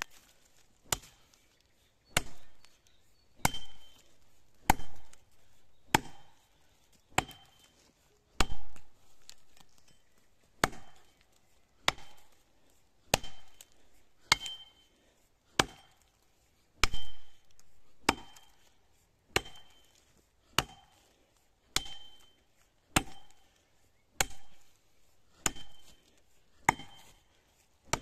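Axe chopping into the trunk of a standing pine tree, cutting the felling notch: sharp, evenly paced blows, a little more than one a second.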